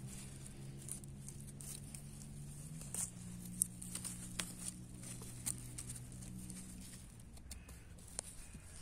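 Scattered light clicks and rustles of wild greens being picked and handled, over a steady low hum that shifts in pitch about three seconds in and fades out around seven seconds.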